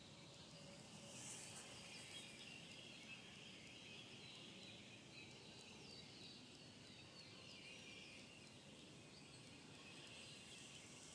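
Near silence of the woods, with faint scattered bird chirps and a faint high insect drone.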